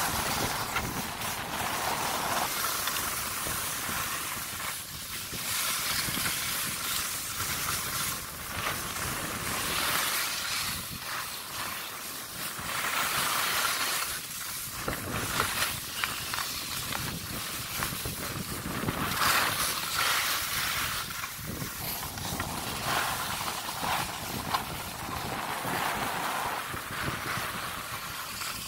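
Skis hissing and scraping over groomed snow, swelling and fading with each turn, with wind rushing over the microphone.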